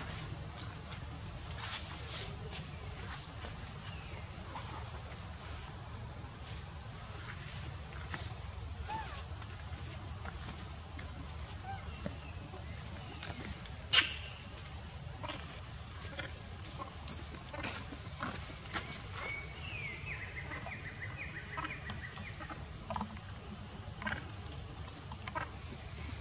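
Steady chorus of forest insects, a continuous high two-pitched drone that does not change. A single sharp click cuts through about halfway in.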